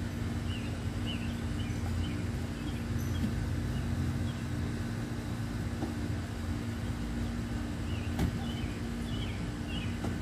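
Outdoor ambience: a steady low rumble with a constant hum, and small birds chirping here and there.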